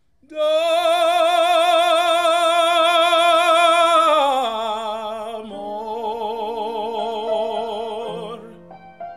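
A man singing opera: one long high note held for about four seconds with wide vibrato, then the line falls and goes on over lower notes. Piano notes come in near the end.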